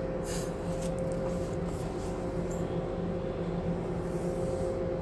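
Steady hum of ship's machinery: a constant mid-pitched tone over a low drone, with a few faint clicks near the start.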